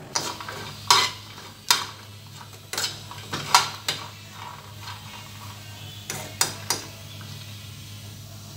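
A metal spoon scraping and clinking against a non-stick frying pan while stirring frying chickpeas. There is a run of sharp scrapes in the first four seconds and three more around six seconds in.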